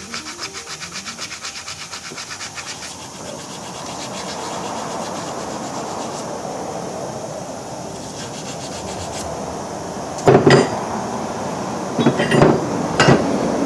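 Sanding rust off a drive shaft's U-joint yoke by hand: quick back-and-forth strokes, about six a second, that settle into steadier rubbing. A few loud knocks come near the end.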